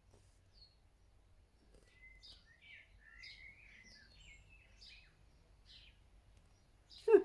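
Small birds chirping and twittering faintly, a quick run of short, partly gliding calls, then a single sharp knock near the end.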